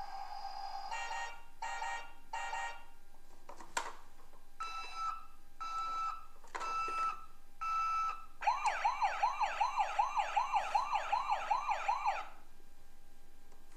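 A toy ambulance's electronic sound effects from its small speaker as its roof buttons are pressed: a steady tone, three short beeps, a click, four two-note beeps, then a fast yelping siren of quick rising sweeps, about three a second, for nearly four seconds before it cuts off.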